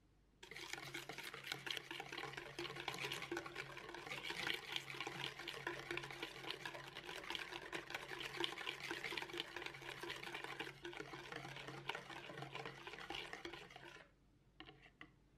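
Wire balloon whisk beating egg yolks and sugar in a plastic mixing bowl: a fast, steady clatter and slosh of the wires against the bowl. It starts about half a second in and stops near the end, followed by a few light knocks.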